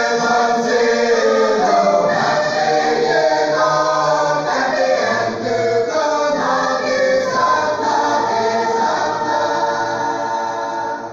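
Mixed choir of women and men singing together in parts, the singing stopping right at the end.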